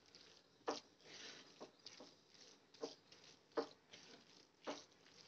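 Faint wooden spatula stirring crumbled soya keema in a nonstick frying pan, with about five short scrapes or knocks against the pan roughly a second apart over a soft rustle.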